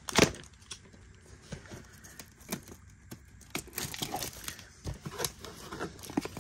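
Plastic shrink wrap on an Elite Trainer Box being picked at and torn by hand, in irregular crinkles and small tearing crackles, with one sharp knock just after the start.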